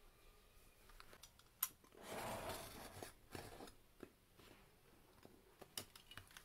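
Snap-off utility knife drawn along a ruler, slicing through thin card. A sharp click comes about a second and a half in, then one scraping cut lasting about a second, followed by a few light clicks and taps of the knife and ruler.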